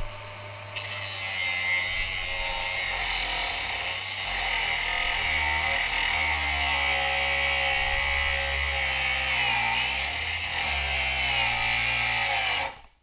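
Milwaukee M18 Fuel brushless cordless angle grinder with a cutoff wheel cutting through 1/8-inch-thick steel angle iron: a loud grinding hiss of wheel on steel that starts about a second in, with the motor's pitch wavering under load. It stops abruptly near the end. The grinder is running on an older, smaller M18 battery that the owner finds starves the motor under load, making it cut out.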